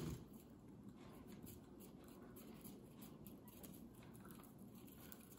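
Faint ticking and rustle of a spinning fishing reel being cranked as monofilament line winds onto its spool.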